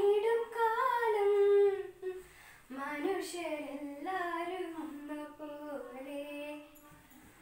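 A female voice singing solo without accompaniment: a held, gliding phrase, a short breath about two seconds in, then a longer phrase that fades near the end.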